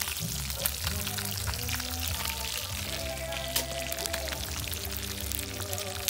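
Music with a steady bass line playing over hot oil crackling and sizzling in a pot where pieces of seafood are frying.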